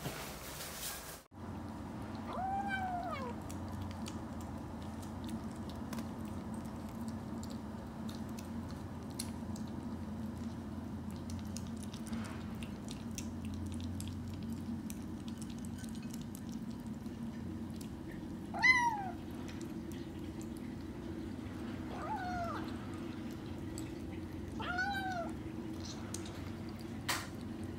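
Kittens mewing plaintively while eating dry kibble: four short high mews, each rising then falling in pitch, spread through the stretch, the loudest about two-thirds of the way in. Faint ticking of dry food being chewed sits between them.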